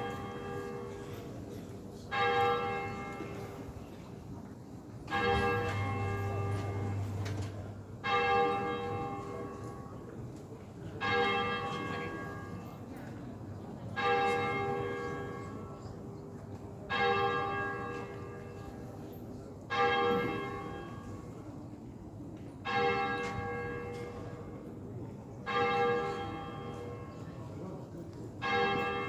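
Church bells ringing in a slow, even rhythm: about ten strokes, one roughly every three seconds, each ringing on and fading before the next.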